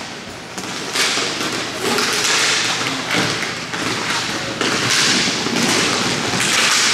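Hockey play: repeated skate scrapes, each lasting about a second, with sticks and puck knocking and a few thuds.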